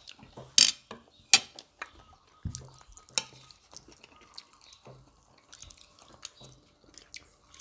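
Metal spoons and forks clinking and scraping on ceramic plates during a meal, with three sharp clinks (about half a second, a second and a half, and three seconds in) and many lighter taps between, along with wet mouth sounds of eating.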